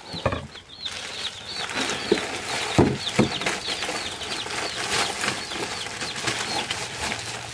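Chickens calling, a steady run of short, high chirps several times a second, over the rustle of plastic bags and a few knocks as grocery packages are set down on a wooden table.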